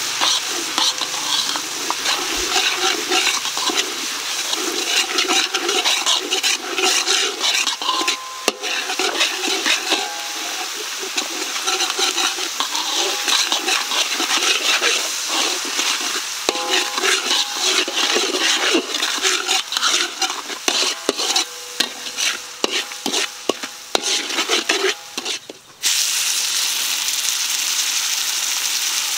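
Pork trotters sizzling as they fry in a pan, with the repeated scrape and clatter of stirring. Near the end the stirring stops, leaving a steady sizzle.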